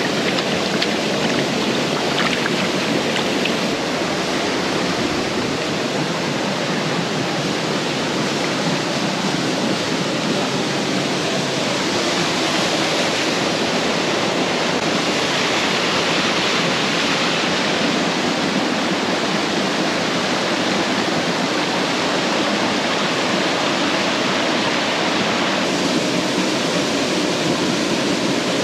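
Steady rush of a shallow stream running over rock slabs, with a small cascade spilling between boulders.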